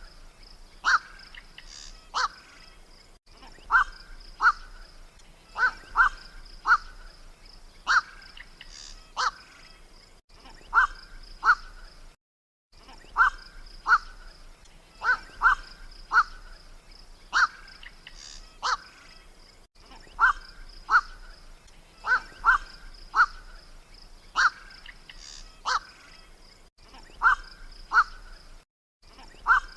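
Black-crowned night heron (burung koak) lure recording: short, hoarse "kwok" croaks in quick pairs and triplets, repeating about every two seconds. A faint steady high tone runs behind, and the track drops out briefly a few times where the recording is spliced.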